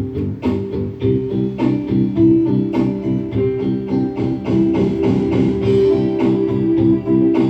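Instrumental background music with a regular beat of short, pitched notes.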